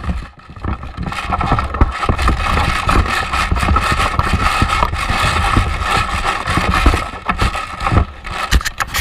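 Loud, continuous scraping and rustling right against the microphone, dense with many sharp clicks and knocks: close handling noise as the camera is jostled and dragged along the ground.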